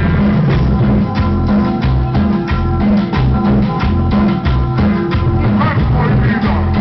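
Recorded dance music played loud over a sonidero's sound system: a steady drum beat over a repeating bass line.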